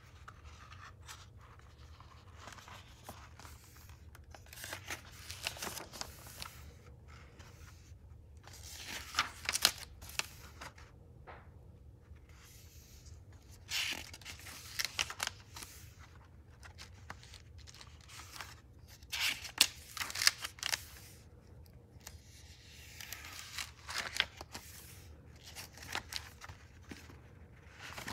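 Paper pages of a hand-bound book being turned and handled, rustling in separate bursts about every five seconds with a few sharp flicks.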